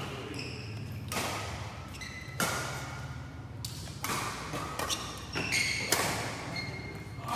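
Badminton rally in a hall: rackets strike the shuttlecock in a string of sharp hits about a second apart. Short high squeaks of court shoes come between the hits.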